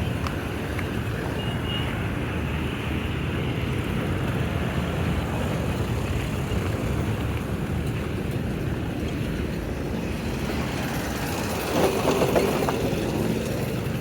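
Steady low rumble of motor-vehicle engine and road noise, with a brief louder burst about twelve seconds in.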